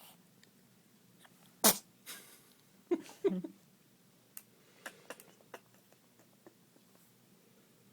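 Small, sharp sneezes: one loud sneeze, then two quick ones close together a little over a second later, followed by a few faint sniffly clicks.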